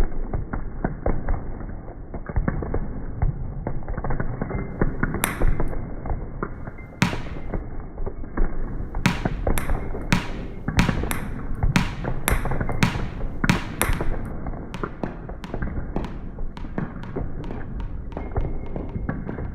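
Dense, layered percussion of knocks and thumps from kinetic objects. Sharper strikes come in about five seconds in, and lighter, quicker ticks follow toward the end.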